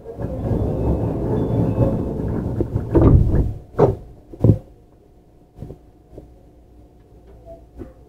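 Inside a JR Central 315 series electric train at a station stop: a rumbling running noise dies away, then the sliding passenger doors thud three times in quick succession. After that, only a faint steady hum from the stopped car.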